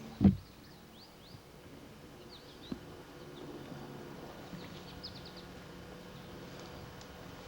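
Small birds chirping in short, repeated high calls over a faint steady low hum, with one loud thump just after the start.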